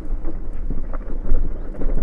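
Wind buffeting the microphone of a motorcycle ridden over a rough, stony gravel track, as a loud low rumble with scattered knocks from the stones.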